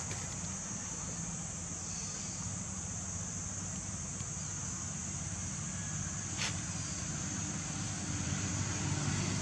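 Steady outdoor background noise: a low rumble under a constant high hiss, with one faint click about six seconds in.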